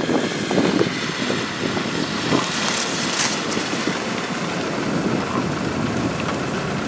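Steady rushing noise of storm wind and rain, with a few brief crackles about three seconds in.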